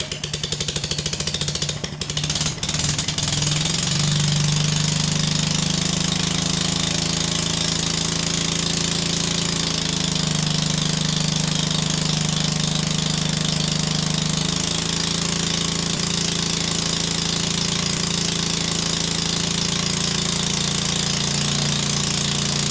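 Single-cylinder Briggs & Stratton small engine with a see-through glass head, running hard under load from a homemade disc-brake dynamometer during a horsepower run. Rapid firing at first, then a steady drone whose speed rises about three seconds in, sags a little around ten seconds in and picks up again near fifteen seconds in.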